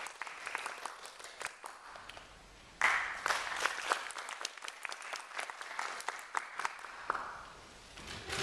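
Audience applauding. The clapping thins out, swells again loudly about three seconds in, then dies away near the end.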